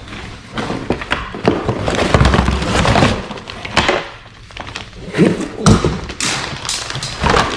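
Fishing-tackle packaging being handled and opened: irregular crinkling and rustling with a series of knocks and thumps.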